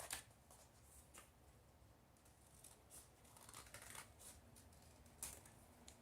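Scissors snipping through paper folded into four layers: a series of faint, irregular cuts.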